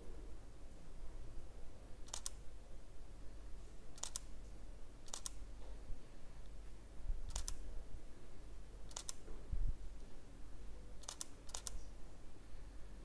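Canon EOS M50 shutter firing seven single shots at uneven intervals, each a sharp double click. A dull low thump comes about two thirds of the way through, under a steady low room hum.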